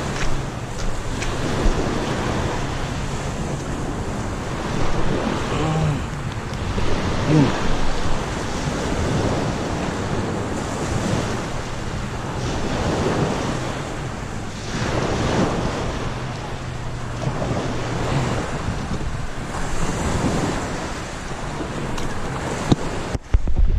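Wind on the microphone over small waves washing on the shore. A low steady hum is there for the first few seconds and again midway.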